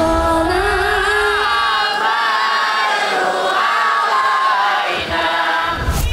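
Many voices singing a melody together over music, with crowd noise; the singing breaks off near the end.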